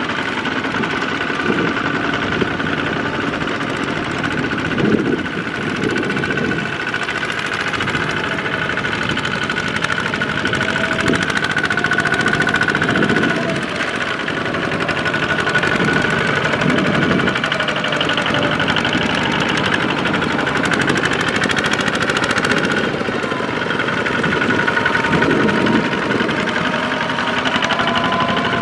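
Single-cylinder diesel engines of Kubota two-wheel walking tractors running steadily under load as they pull trailers loaded with rice sacks through mud.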